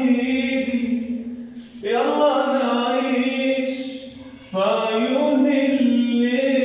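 A man singing an Arabic song unaccompanied, in long held notes. Each phrase swells and then dies away, with new phrases beginning about two seconds in and again about four and a half seconds in.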